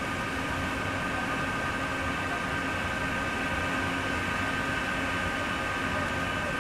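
Steady, unchanging machine-like drone with several held hum tones over a background hiss.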